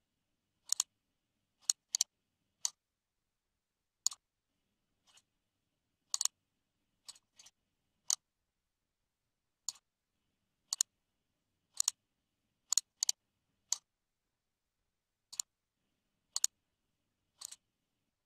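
Computer mouse clicks at irregular intervals, mostly single with a few quick pairs like double-clicks, each short and sharp with silence between.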